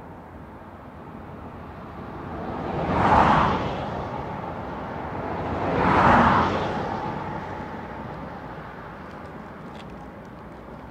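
Two road vehicles passing by one after the other, about three seconds apart, each swelling up and fading away, over a steady background hiss.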